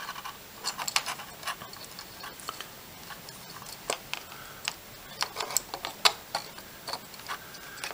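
Scattered light clicks and taps, irregular and a few a second, of a small circuit board being pressed down by hand onto plastic standoffs among its wires.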